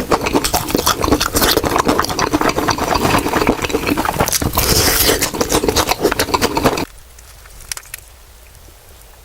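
Close-miked crunching and chewing of crispy fried chicken: a dense crackle of breaking crust that cuts off suddenly about seven seconds in, leaving only faint scattered crackles.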